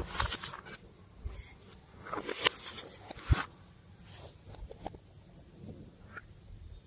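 Slime being squeezed and mixed by hand, making sticky crackles and clicks in two bursts, the second ending in a sharp pop about three seconds in, then fainter scattered clicks.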